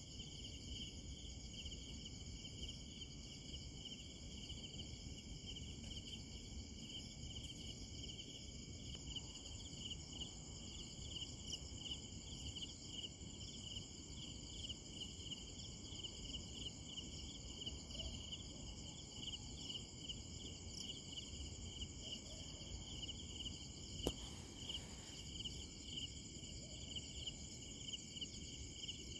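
A chorus of night insects, crickets, trilling steadily at two high pitches, the lower one a fast pulsing, over a faint low rumble. Late on, a single sharp click.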